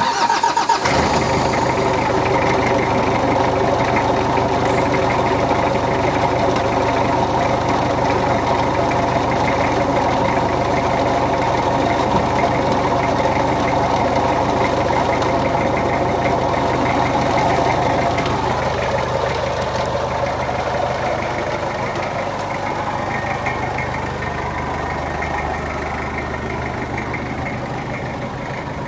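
Volkswagen Taro 2.4 D diesel engine cranked cold without glow-plug preheating: it catches within about a second and settles into a steady diesel idle, a little quieter over the last ten seconds.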